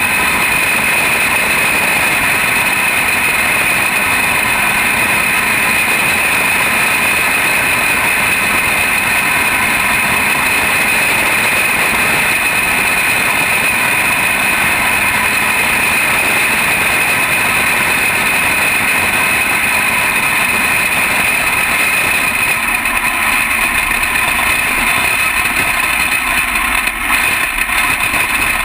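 A Jr. Champ kart's engine running hard at near-constant revs, heard up close from the onboard camera on the kart, with a brief dip in level near the end.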